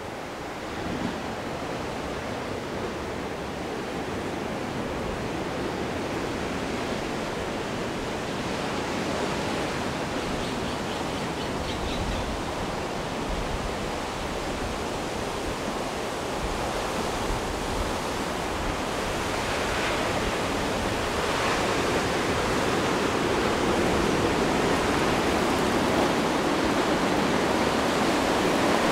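Ocean surf washing onto a beach: a steady rushing noise that slowly grows louder toward the end.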